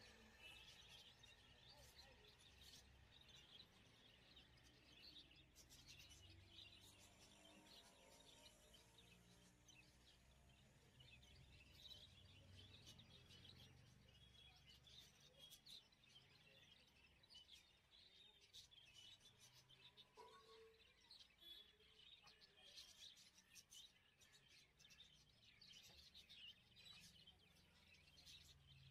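Near silence: faint background noise with scattered faint high chirps, like distant birds.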